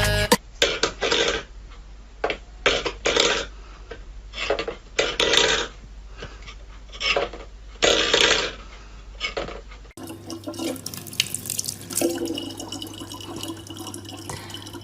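Water splashing in short, irregular bursts. After a cut about ten seconds in, a tap runs steadily over a low electrical hum.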